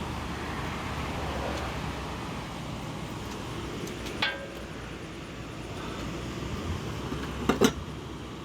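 Steady low background rumble with a few sharp metallic clinks of parts and hand tools: one with a short ring about four seconds in, and a quick cluster near the end.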